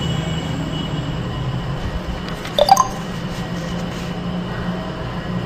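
Steady low hum of background machinery noise with a faint high whine over it, broken once about two and a half seconds in by a brief sharp sound.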